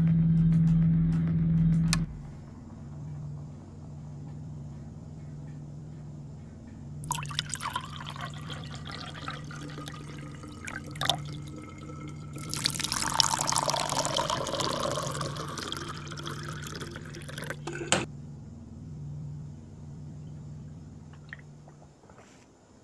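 Music cuts off about two seconds in, leaving a low pulsing hum. Over it, liquid is poured into a cup twice: a short pour about seven seconds in, and a longer, louder one from about twelve to eighteen seconds.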